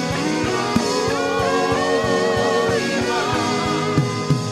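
Live worship music with no words: held chords and a wavering melody line over a soft beat.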